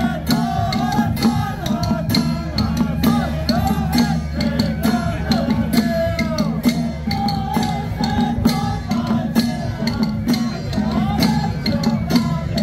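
Taiwanese temple-procession music: a wavering melody over a constant, rapid clash of percussion and a heavy low drone, with crowd noise underneath.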